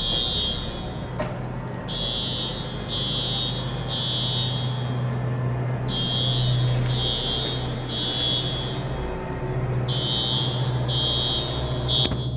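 Electronic warning beeper going in groups of three beeps, about one a second, with a short pause between groups, over a steady low engine hum.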